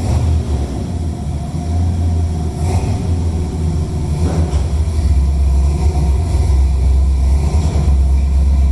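1997 Dodge Dakota pickup's engine running with a deep, steady exhaust rumble.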